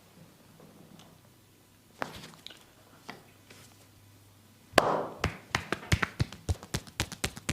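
Percussive massage strokes: hands tapping and slapping on the body. A few soft taps come first, then about five seconds in a quick, even run of sharp slaps at about four a second, the first the loudest.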